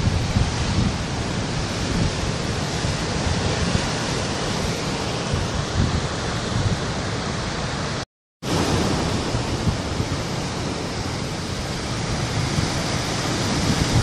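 Sea surf washing and breaking over rocks on a rocky shore: a continuous rushing wash with a low rumble underneath. The sound cuts out completely for a fraction of a second about eight seconds in, then resumes.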